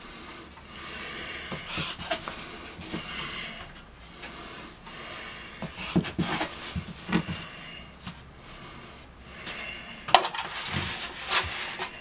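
Dough being handled and cut with a knife on a floured wooden board: soft rubbing and scraping, with a few light knocks and one sharper knock about ten seconds in.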